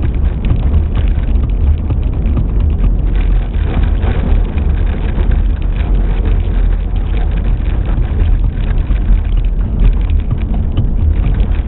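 Car driving on a gravel road: a steady, loud low rumble of tyres on the loose surface, with a continuous crackle of small stones.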